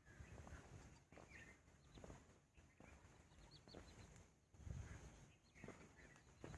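Faint birdsong: scattered short chirps and brief whistled calls from several small birds over a very quiet background, with a few soft low thuds.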